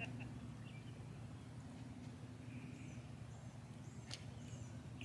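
Faint bird chirps, a few short high calls in the second half, over a steady low hum.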